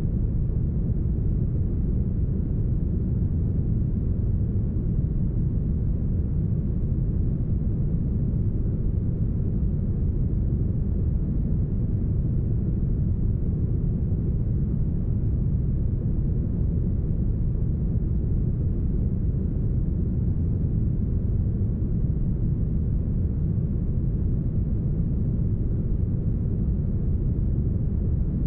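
Deep, smoothed brown noise: a steady, even low rush with its treble cut away.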